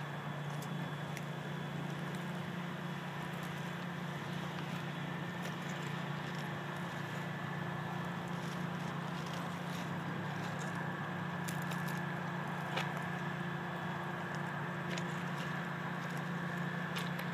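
EMD SD40-2 diesel locomotive idling while stationary, its 16-cylinder two-stroke EMD 645 engine giving a steady low hum with a few faint higher tones. A faint click sounds about 13 seconds in.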